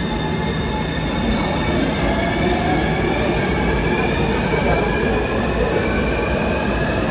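Taipei Metro Circular Line train pulling out of the station, its traction motors giving a whine that climbs steadily in pitch as it accelerates, over the rumble of wheels on rail.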